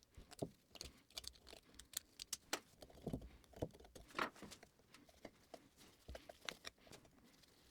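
Faint, irregular clicks and light taps of metal parts being handled, a dozen or so scattered small knocks with quiet between them.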